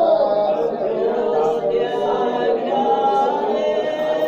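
Church congregation singing a hymn together, many voices holding long notes.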